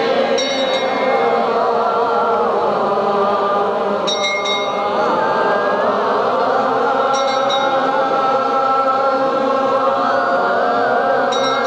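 Many voices chanting a slow hymn together in long held notes, with a short high metallic jingle about every three to four seconds.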